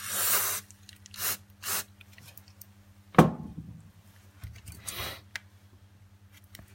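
Short hissing sprays of 530 liquid solvent being applied under a phone's back glass to soften its adhesive, then a single sharp click about three seconds in, and a softer hiss near five seconds.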